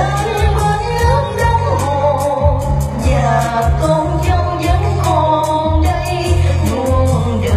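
Amplified Vietnamese pop song over a sound system: a steady drum beat with heavy bass and a wavering sung melody.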